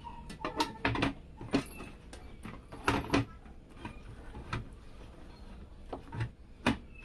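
A 3.5-inch hard drive being slid into the drive bay of a steel PC case: scattered clicks, knocks and scraping of metal and plastic.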